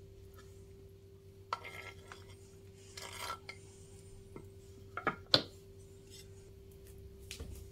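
Kitchen knife scraping on a wooden cutting board as sliced boiled chicken liver and gizzard are pushed off into a plate, with two sharp clicks of the knife about five seconds in, the second the loudest. A faint steady hum runs underneath.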